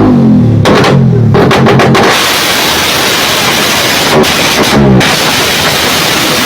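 Honda RS150's single-cylinder engine, fitted with a dual throttle body, being revved hard: two quick blips with the revs falling away in the first second and a half, then a harsh, rough rush of noise at high revs broken by short blips about four and five seconds in.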